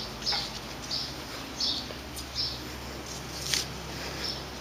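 A bird chirping a short, high note over and over at an even pace, about three every two seconds, with a single click about three and a half seconds in.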